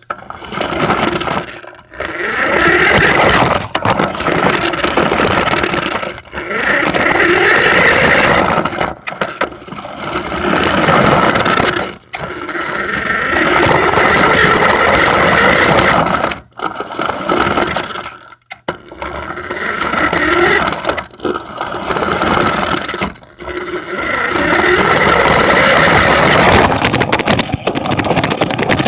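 Radio-controlled truck's motor and drivetrain whining in repeated bursts of a few seconds, with short pauses between, as the truck is driven. The pitch rises as it speeds up, with rattling from the truck as it moves.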